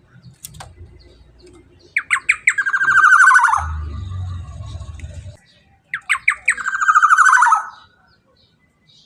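Black-naped oriole (kepodang) calling twice, each phrase a few quick sharp notes that run into a harsh, falling rattle. A low rumble sits under the end of the first call.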